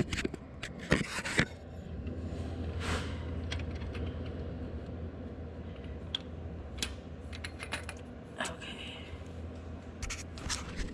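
Torque wrench socket scraping, rubbing and knocking against metal as it is felt blindly onto a cylinder head bolt, with scattered sharp clicks and a cluster of knocks about a second in, over a steady low hum.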